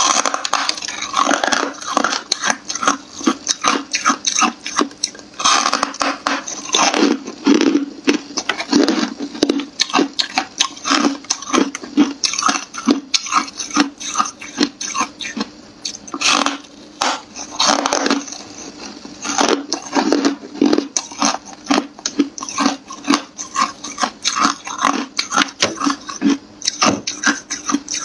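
A person biting and chewing hard, frost-covered ice, making rapid crackling crunches several a second with short pauses between bites.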